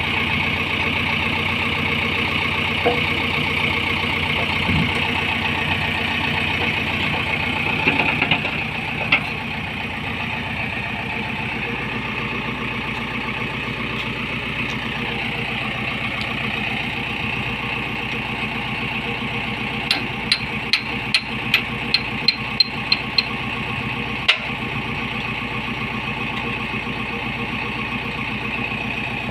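Backhoe loader's diesel engine idling steadily. About two-thirds of the way in comes a quick run of about nine light metallic taps with a ringing tone, then one more sharp knock.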